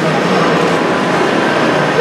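Motorised LEGO train running steadily along plastic track, over the background chatter of a crowd in an exhibition hall.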